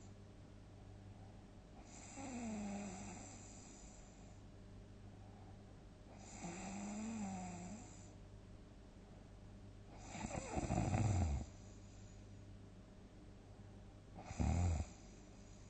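A sleeping person snoring loudly, four snores about four seconds apart. The first two have a whistling tone that slides in pitch. The third, about ten seconds in and the loudest, is rough and rattling, and the last is a short rattling snort. A steady low hum runs underneath.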